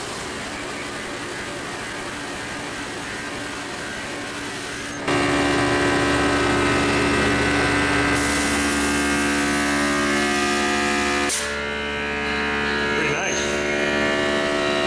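Horizontal bandsaw with a coarse-tooth blade cutting through a 6¼-inch 6061 aluminum round bar: a steady sawing noise with ringing tones. It jumps abruptly louder about five seconds in and changes again around eleven seconds.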